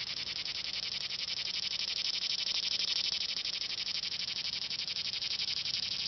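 A single cicada singing: one steady, high buzz with a fast pulsing flutter.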